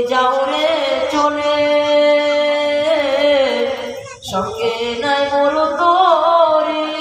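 A man sings an Islamic devotional song (a gazal about Medina) into a microphone, with no instruments heard. He holds long notes whose pitch wavers and bends, and pauses briefly for breath about four seconds in.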